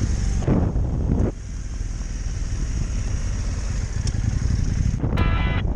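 Adventure motorcycle riding along a forest gravel track, with steady engine and wind rumble. Music comes in about five seconds in.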